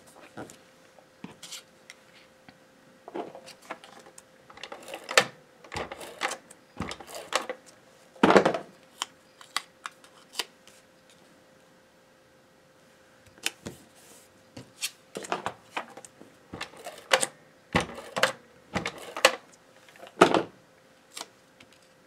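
Cardstock being handled by hand: small die-cut paper squares tapped, slid and pressed onto a card on a cutting mat, giving irregular light taps and paper rustles in two busy spells with a pause about halfway through.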